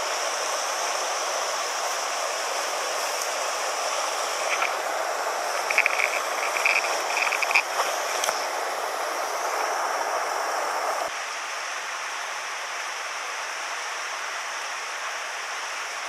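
Steady hiss of a small mountain stream rushing over a low rocky cascade. A few short high chirps come about six seconds in. About eleven seconds in the sound drops suddenly to a quieter, thinner flow of water.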